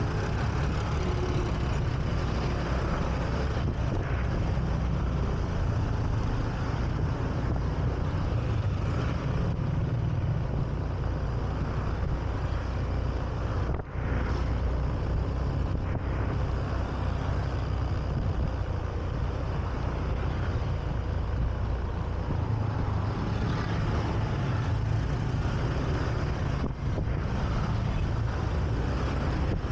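Steady running noise of a Honda Beat scooter heard from the rider's seat, mixed with the surrounding car and motorbike traffic. The noise is heaviest in a low rumble and holds even, with two brief dips about halfway and near the end.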